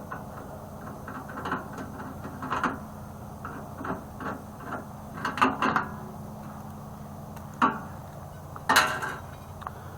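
A screw being worked out of a microwave's capacitor mount with a hand tool: scattered metal clicks and scrapes, louder and sharper in the second half, as the capacitor is freed. A steady low hum runs underneath.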